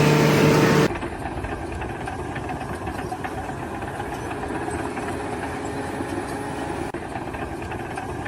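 A loud steady tone for about the first second, then a motor engine running steadily until the sound cuts off at the end.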